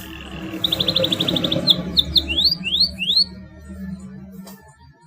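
Domestic canary singing: a fast trill of short repeated notes, then four quick upward-sweeping whistles, over a steady low hum.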